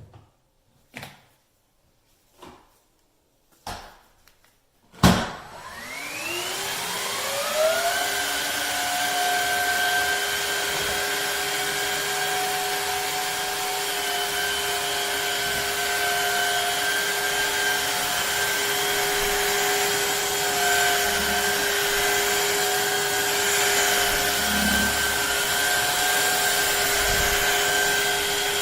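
A few short knocks, then the Shark HydroVac MessMaster cordless wet-dry vacuum mop switches on about five seconds in. Its motor whine rises for about two seconds, then runs steadily.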